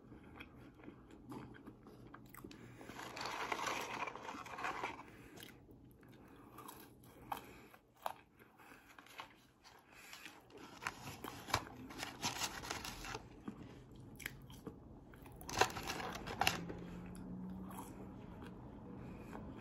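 Close-up eating sounds: a person chewing and biting food, with scattered crunches and small mouth clicks.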